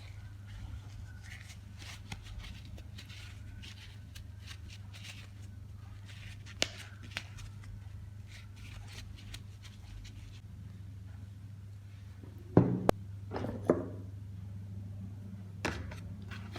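Handling parts and tools on a work surface: light clicks and rustling, then a few louder knocks about twelve to fourteen seconds in, over a steady low hum.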